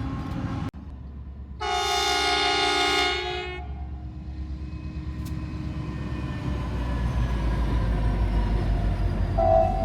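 A train's air horn sounds one blast of about two seconds, several notes at once in a chord. Then the low rumble of the train grows louder as it approaches, with a brief horn toot near the end.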